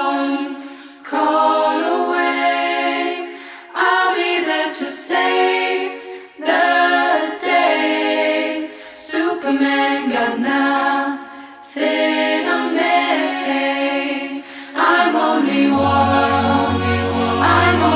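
Choir singing a cappella in phrases of a few seconds each, with short breaks between them. Near the end a low held note enters beneath the voices.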